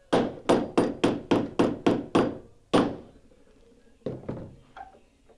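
Hammer driving a nail into white cedar hull planking on a wooden skiff: about nine quick, sharp blows in under three seconds, then two lighter blows about a second later.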